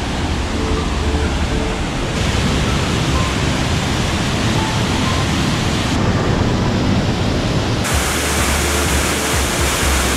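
Steady roar of rushing water from mountain waterfalls, changing abruptly in tone three times. Soft background music plays underneath.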